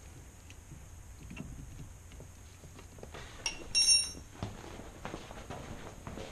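A metal spanner clinks twice and rings briefly as it is set down on the floor about three and a half seconds in. Shuffling and handling noise surround it, and a few knocks and steps follow.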